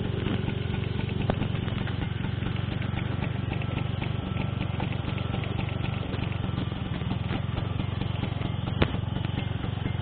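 Motorbike engine idling steadily, with one sharp click near the end.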